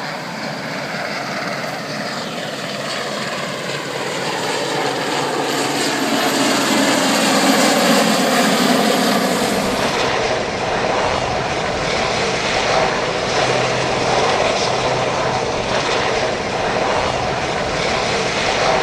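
Aircraft engine noise with its pitch falling steadily over the first half, as in a flypast. About halfway through the sound changes abruptly to steady running with a low hum.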